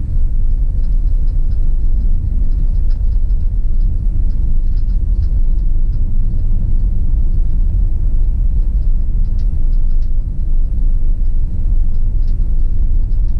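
Steady low rumble of a vehicle's engine and tyres on the road, heard from inside the cab while driving slowly, with faint scattered high ticks.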